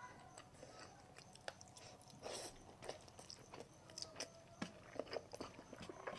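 A person chewing food close to the microphone: faint, irregular small clicks and mouth sounds, with one longer, louder noise about two seconds in.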